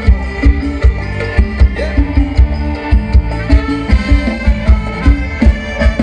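Live band playing Thai ramwong dance music, with a steady heavy beat and melody instruments.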